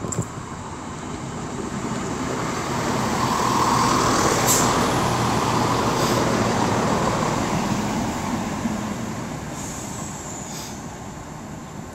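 Two-car Class 170 Turbostar diesel multiple unit running into the station, its engine and wheel noise growing to a peak about four seconds in, then fading.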